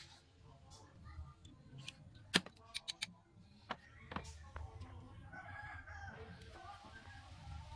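Small hand tools and wood pieces clicking and tapping sharply several times during hand carving work. From about halfway, a drawn-out wavering rooster crow joins in the background.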